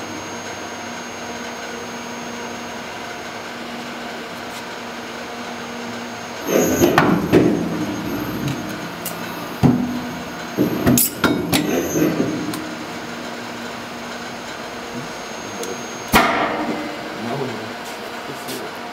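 SEYI servo stamping press running a slow blanking stroke through 4 mm automotive sheet steel over a steady hum. A thin high whine runs from about six seconds in to about sixteen, with a few groups of knocks and clicks and a sharp click near the end. There is no loud bang at breakthrough: the cut is slow and controlled to keep the noise down.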